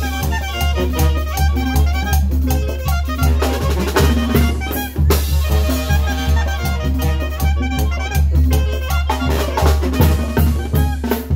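Live banda-style brass band playing: trumpets, trombones and clarinet carry the tune over a sousaphone's pulsing bass line, with a drum kit and bass drum striking a steady beat.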